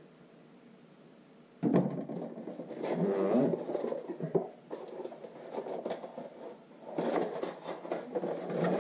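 Cardboard shipping box being opened by hand: after a quiet moment the handling starts sharply about a second and a half in, followed by irregular scraping and rustling of the cardboard flaps with scattered clicks.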